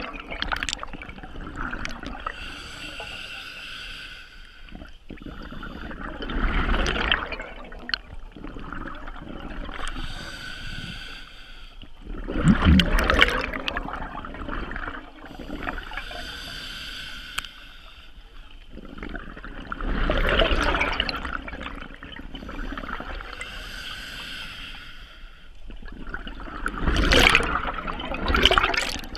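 Scuba diver breathing through a regulator underwater. Each breath is a hissing inhale followed by a loud rush of exhaled bubbles, about four breaths in a slow, even rhythm.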